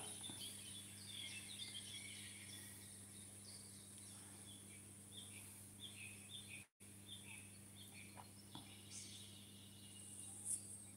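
Quiet outdoor ambience with faint, scattered bird chirps over a low steady hum. The sound cuts out completely for a moment about two-thirds of the way through.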